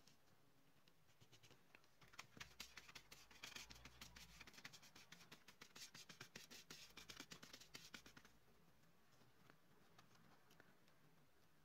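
Bristle glue brush scraping white glue onto the cardboard of a notebook cover: a quick run of faint, scratchy strokes that starts about two seconds in and thins out after about eight seconds.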